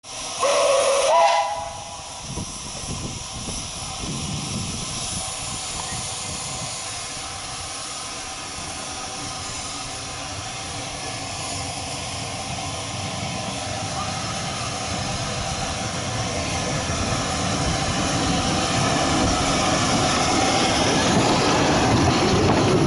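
Bagnall 2-4-0T steam locomotive gives a short whistle, then pulls away with a steady hiss of steam and exhaust beats, getting louder as it comes closer.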